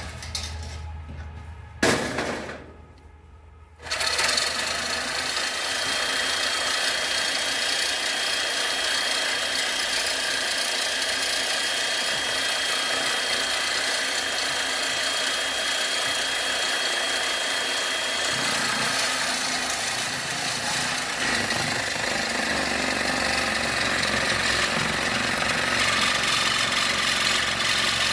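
A power tool, used to break down box fans for scrap metal, starts about four seconds in and then runs loud and steady, with a thin whine through part of it.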